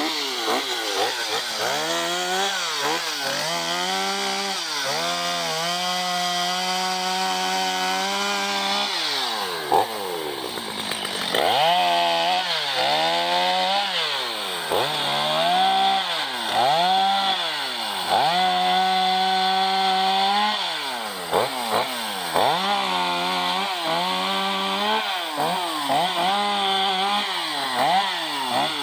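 Gas chainsaw running, its engine revving up and dropping back again and again as the throttle is squeezed and released, held at high revs while cutting a downed tree.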